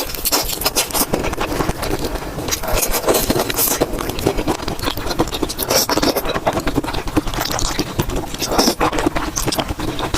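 Close-miked eating sounds: chewing and mouth noises in a dense, continuous run of small clicks and crackles.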